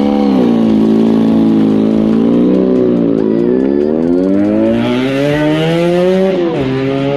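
Motorcycle engine revved hard during a burnout, its pitch rising and falling; a long climb in revs ends in a sudden drop near the end before it climbs again.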